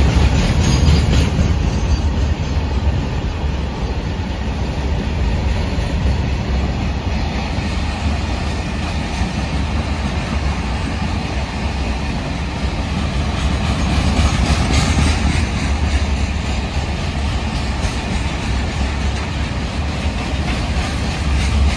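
Freight train of BOXNHL open wagons rolling past close by: a steady rumble with wheels clattering over the rail joints, briefly louder about two-thirds of the way through.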